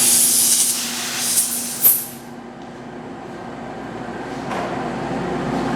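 A loud hiss that cuts off sharply about two seconds in, over the steady hum of a running metal lathe. The hum grows slowly louder toward the end.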